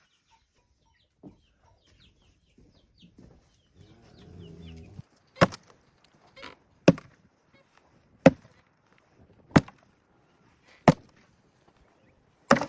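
Six hard chopping strikes, evenly spaced about a second and a half apart, through the second half. Before them, faint clucking and chirping of chickens.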